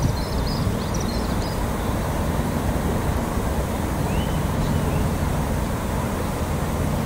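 Steady low outdoor rumble, with a small bird chirping quickly over and over for the first second and a half and one short rising call about four seconds in.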